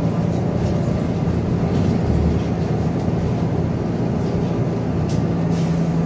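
Inside a moving city bus: steady engine and road rumble with an even low hum.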